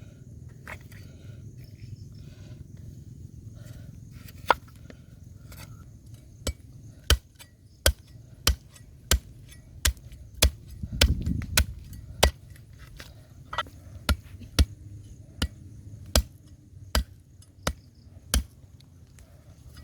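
A cleaver chopping pig leg on a wooden board: a run of sharp single strikes, about one every two-thirds of a second, starting a few seconds in.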